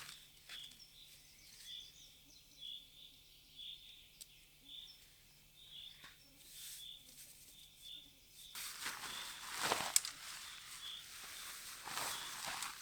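A short high chirp repeating evenly about every half second in quiet natural surroundings. About two-thirds of the way in, louder rustling and crunching begins, with one sharp click.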